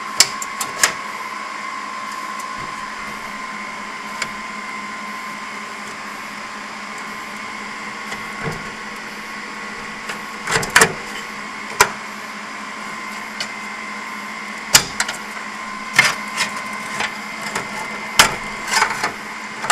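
Sharp metallic clicks and clatters from a desktop computer case's steel hard-drive cage and latch being handled, in clusters through the second half. Under them runs a steady electronic hum with fixed whining tones.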